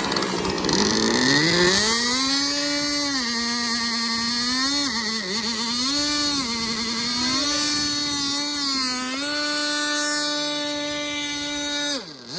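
Model racer plane's small two-stroke glow engine running at high speed with a high, harmonic-rich note. Its pitch sags and climbs again several times, with a sharp drop and quick recovery near the end.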